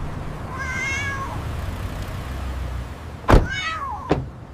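A kitten meows twice in high, thin calls, the first about half a second in and the second about three and a half seconds in. A sharp thump comes just before the second meow, over a steady low hum.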